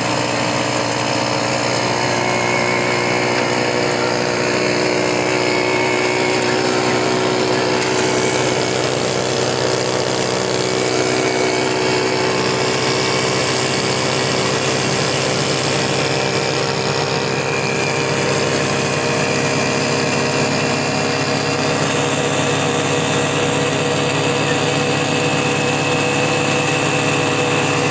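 Single-cylinder four-stroke engine of a CD 70-type motorcycle running steadily under load, belt-driving a thresher from its rear wheel, with the thresher running along with it.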